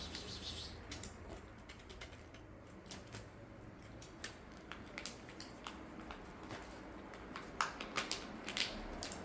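Cats eating wet cat food: irregular, quick wet chewing and lip-smacking clicks, with a few louder smacks in the last two seconds.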